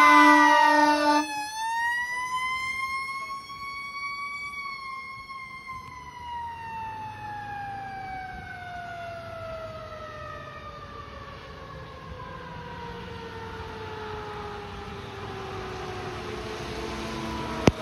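Fire engine (2021 Pierce Arrow XT) on an emergency response: a horn blast cuts off about a second in. Then its siren rises in pitch for a few seconds and winds slowly down, fading as the engine drives away. A sharp click near the end.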